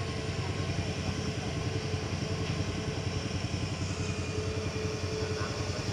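An engine running steadily at a constant speed, with a fast, even throb.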